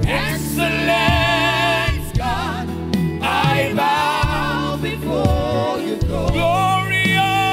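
Live gospel worship song: a man singing long held notes with strong vibrato into a microphone, a woman singing with him, over a steady sustained low accompaniment.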